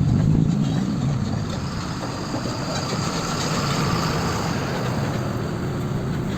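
Water running steadily, a continuous rushing noise, as a muddy plastic toy is washed.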